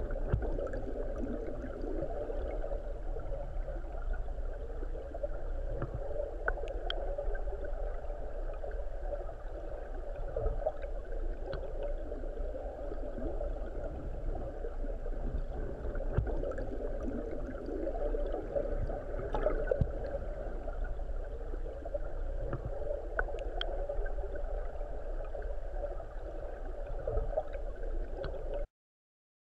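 River current heard underwater: a steady low rushing gurgle with scattered faint clicks, cutting off abruptly near the end.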